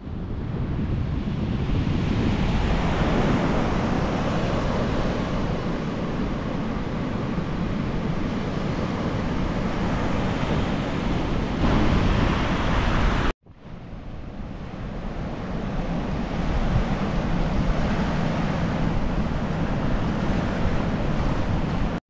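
Ocean surf washing onto a sandy beach, mixed with wind rumbling on the microphone. The sound cuts out abruptly about two-thirds of the way through, then comes back and builds again.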